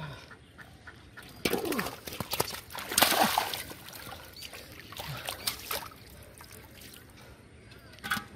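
Splashing and sloshing in shallow muddy water as bare hands grab a catfish, in several bursts, the loudest about three seconds in.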